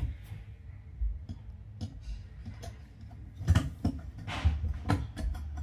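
Metal clicks and taps of a bathtub drain cover being fitted into place, with a brief cluster of knocks a little past the middle.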